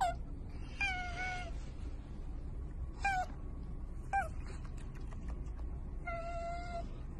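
Asian small-clawed otter squeaking to beg for food held out by hand: five high calls, the short ones dropping in pitch, the second and last drawn out longer.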